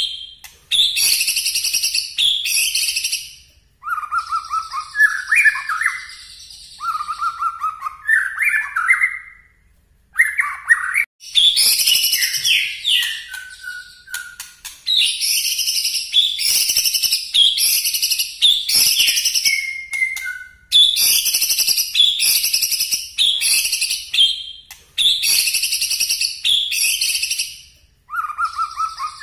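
White-rumped shama singing loud, sharp, high-pitched phrases over and over with short pauses between them, the 'nembak' (shooting) bursts that keepers prize. Lower phrases come in about four to ten seconds in.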